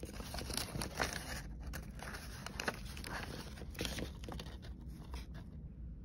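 Thin paper wrapper crinkling and crackling as fingers peel it away from a powdered mochi daifuku. The crackling stops about five and a half seconds in.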